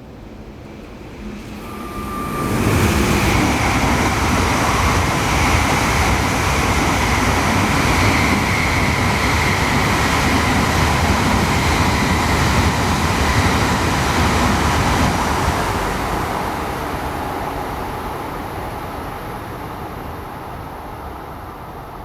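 Shinkansen train passing at speed without stopping: a rush of noise that builds sharply about two seconds in, holds loud for about twelve seconds, then fades away.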